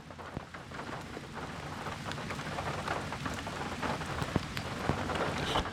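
Steady rain falling, with many separate drops ticking on surfaces.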